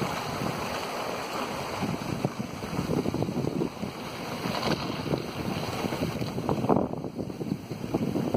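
Water splashing and rushing along the hull of a small sailing boat under way, with wind buffeting the microphone.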